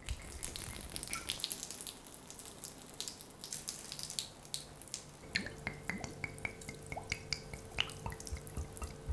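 Red liquid poured from a glass wine bottle into a kitchen sink, splashing and dripping in many small irregular ticks. A faint steady hum comes in about halfway through.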